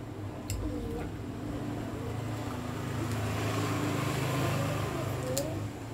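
A motor vehicle passing by: its engine and road noise build up, peak about four seconds in and fade away, over a steady low engine hum.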